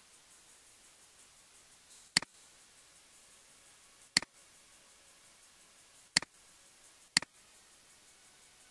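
Four sharp computer mouse button clicks, each a quick press-and-release, the first three about two seconds apart and the last a second after the third, over a faint steady hiss.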